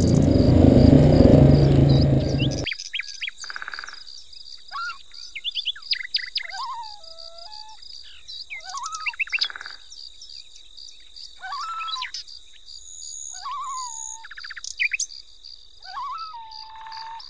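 Songbirds calling with short whistled phrases that slide up and down in pitch, over a steady high insect-like trill. A loud low rumble at the start cuts off sharply after about two and a half seconds.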